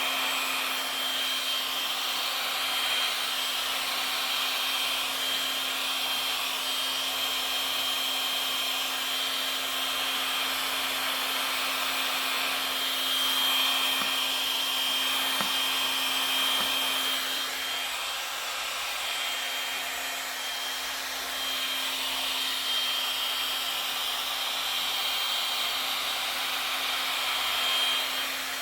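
Hand-held hot-air blower running steadily, with a thin whistle over its hum, as it blows across wet resin to push it into waves.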